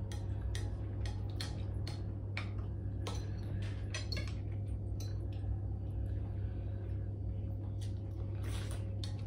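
Spoon and fork clinking and scraping against ceramic bowls and a plate while eating, in irregular taps that thin out for a couple of seconds in the middle. A steady low hum runs underneath.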